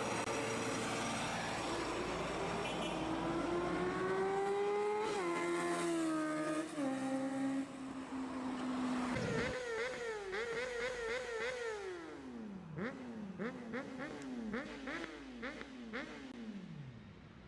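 Sport motorcycle engine revving up with the pitch climbing, then dropping in steps as it shifts through the gears. A second run of quick throttle blips follows, then the revs fall away several times with popping and crackling from the exhaust.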